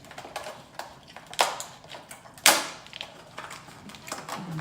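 Close-miked eating: wet lip smacks and mouth clicks while chewing a spicy tuna sushi roll, with two louder smacks about one and a half and two and a half seconds in.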